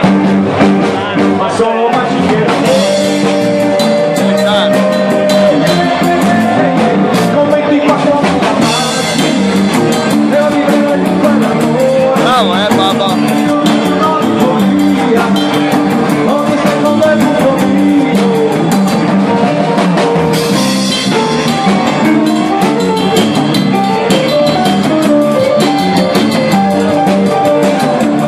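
Live swing band playing an up-tempo number, with drum kit, electric guitar and keyboard, loud and continuous.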